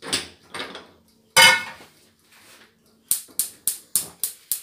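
A saucepan is knocked about and set down with a clank on a gas hob's pan support, then the hob's spark igniter clicks rapidly, about four clicks a second, to light the burner.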